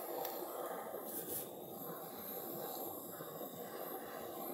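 Handheld butane kitchen blowtorch burning with a steady hiss as its flame chars boiled new potatoes in a stainless steel tray.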